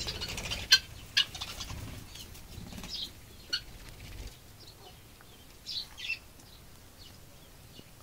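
Budgerigars in an aviary: a few short high chirps, about three seconds in and again near six seconds. There are a few sharp clicks in the first half, over a low rumble that stops about four seconds in.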